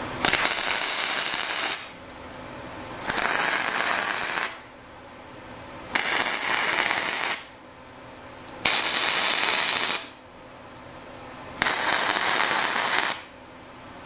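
Wire-feed (MIG) welder laying five short welds on steel, each a steady burst of about a second and a half with short pauses between.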